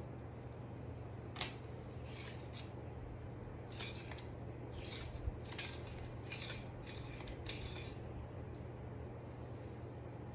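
Aluminium rods and metal clamps of a dog wheelchair frame clinking and rattling as they are handled and fitted together: a string of about eight short metallic clinks, over a steady low hum.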